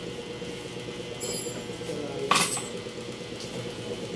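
Steady background hum with a faint light clink about a second in and a short, loud noisy burst a little after two seconds.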